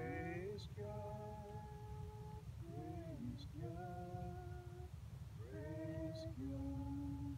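Several voices singing a slow, unaccompanied tune in long held notes that often scoop up into pitch, over a steady low rumble.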